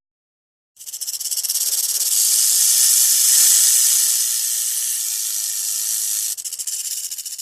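A loud hiss that starts suddenly about a second in, with a fast flutter running through it. It swells toward the middle and carries on for about seven seconds.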